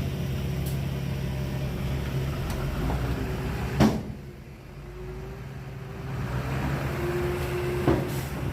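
Heavy diesel earthmoving machinery running steadily, with two sharp knocks about four seconds apart, the first the louder. The engine sound drops for a couple of seconds after the first knock, then comes back up.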